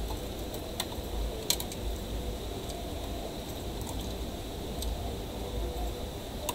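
Steady low hum of an electronics workbench with a few scattered light clicks and ticks of handling at the circuit board, the sharpest about a second and a half in.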